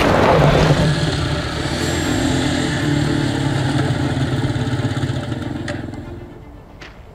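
Two motorcycles riding, their engines running in a steady drone that fades away in the last second or so.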